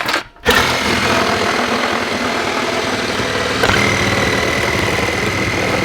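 Handheld power saw cutting through plywood sheathing along the bottom of a wall opening. It starts about half a second in and runs steadily, and a high steady whine joins about halfway.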